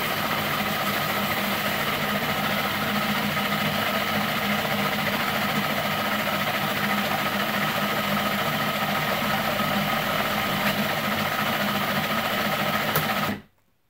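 Food processor motor running steadily at speed, puréeing a thick pesto of greens, olive oil and avocado, then switched off suddenly near the end.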